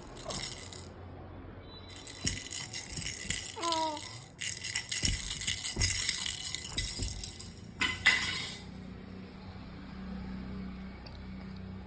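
Baby rattle toy shaken in bursts of dense rattling, pausing briefly about a second in and stopping about two-thirds of the way through. A short voice sound comes near four seconds in.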